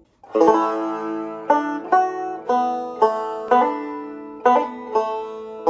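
Background music on a plucked string instrument: single notes picked roughly twice a second, each ringing and fading, after a brief drop-out just at the start.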